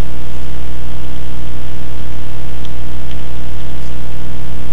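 Loud, steady electrical mains hum and buzz with hiss from the recording microphone, with a few faint key clicks as code is typed.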